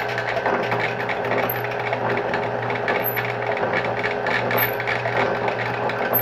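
Rhodes metal shaper running and cutting an internal keyway in a metal ring, with a steady motor hum under the machine noise. A short high chirp recurs about every second and a half, in time with the ram's strokes.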